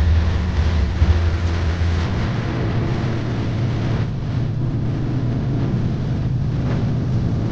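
An engine running with a steady low drone; about two seconds in, its pitch shifts up a little and holds.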